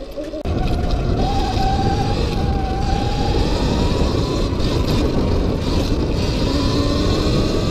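Sur-Ron X electric dirt bike at speed: the motor's thin whine climbs in pitch as the bike accelerates and then holds steady, under heavy wind rush on the microphone and tyre noise on dirt. The wind noise comes up suddenly about half a second in.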